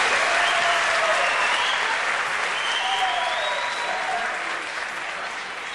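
Crowd applauding, with a few voices calling out over the clapping; the applause fades down steadily.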